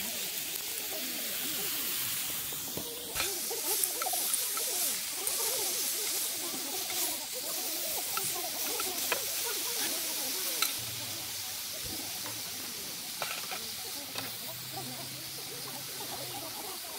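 Beef sirloin steak and vegetables sizzling in a hot, smoking pan, with scattered sharp clicks of metal tongs and popping fat.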